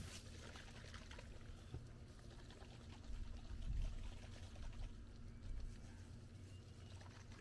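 Faint sloshing of tie-dye squeeze bottles being shaken to dissolve the dye powder, with a few soft knocks.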